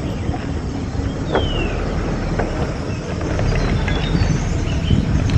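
Safari vehicle driving along a rough dirt forest track: a steady engine and road rumble. Over it comes a bird's falling whistle about a second in, then a few short high chirps near the end.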